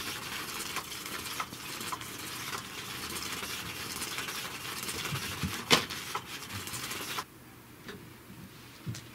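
Electric cat toy (Catch Me If You Can 2) running: its motor whirs and its wand scratches and rattles under the fabric cover, with a sharp click about halfway through. The sound cuts off about seven seconds in.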